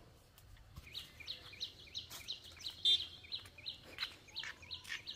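A bird cheeping over and over in short, high chirps, about three a second, with one louder, clearer note about three seconds in.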